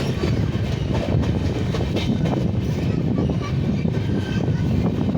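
A loud, steady low rumble with irregular clicks and rattles, like a train running on its rails. The uploader presents it as the sound of ghosts inside a cave.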